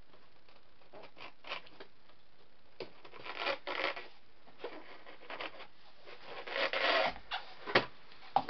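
Cardboard model-train box being worked open by hand: irregular rubbing and scraping of cardboard as the end flap and lid are worked loose, with a couple of sharp clicks near the end.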